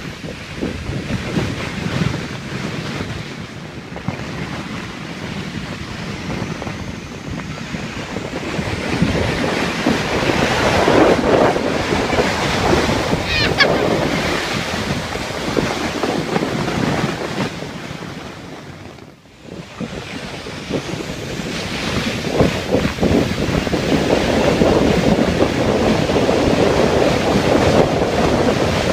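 A sled sliding down a snowy hill: a steady rushing hiss of the sled over the snow, with wind buffeting the microphone. The sound dies away briefly about two-thirds of the way through, then comes back as another run starts.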